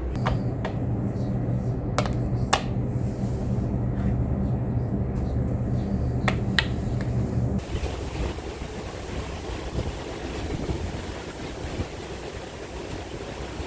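A steady low mechanical hum with a few sharp clicks, cutting off suddenly about seven and a half seconds in to a steady rushing noise like wind or running water.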